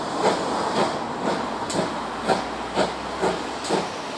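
Steam tank locomotive hauling a train slowly, its exhaust chuffing evenly about twice a second over a steady hiss of steam.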